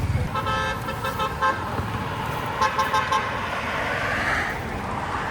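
A vehicle horn beeping several quick times about half a second in, and again a few times near three seconds, over steady road traffic noise.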